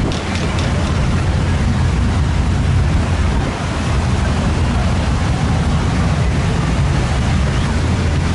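Wind buffeting the microphone over rushing, wake-churned sea water, with a steady low rumble of motorboat engines from the surrounding spectator boats.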